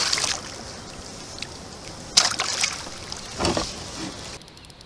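Sea water splashing beside a kayak as something is dropped into it, followed by two more splashes and sloshing about two and three and a half seconds in.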